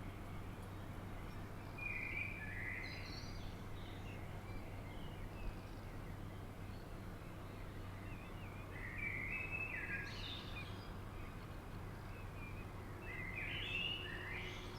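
A bird calls in three short bursts of chirping notes, over a steady low rumble of wind.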